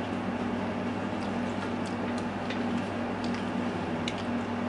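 Eating at a table: plastic forks clicking and scraping in aluminium foil food trays, a scattering of light clicks over a steady low hum.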